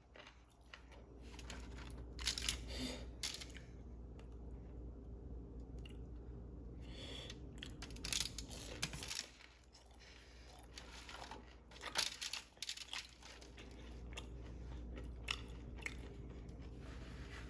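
Close-miked chewing of crispy fried food, with sharp crunchy bites about four times. A steady low hum runs underneath.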